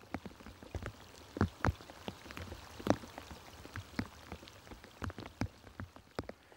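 Raindrops falling on a river's calm surface, separate drops plopping at an uneven rate of several a second.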